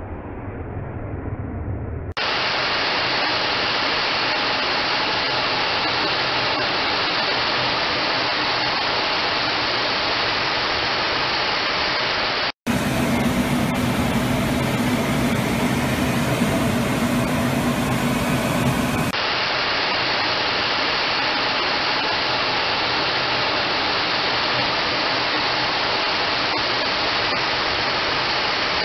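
Steady rushing noise of jet aircraft in flight, engine and airflow, heard from inside a fighter's cockpit. Its tone changes abruptly about 2 s, 13 s and 19 s in, and the middle stretch carries a low hum.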